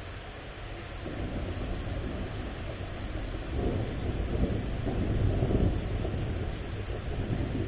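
Rolling thunder: a low rumble that builds from about a second in, peaks in the middle and eases a little near the end, over a steady hiss of rain.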